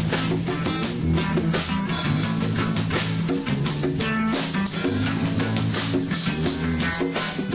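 Rock band music with guitar, bass and drums playing steadily.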